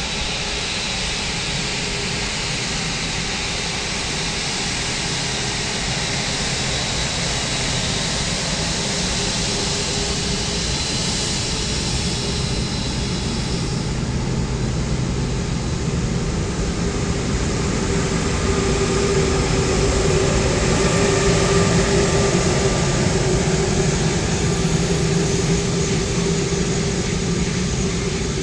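Emirates Airbus A380 taxiing: its four jet engines run at low taxi power with a steady whine and rumble. The sound swells a little past the middle as the airliner passes broadside.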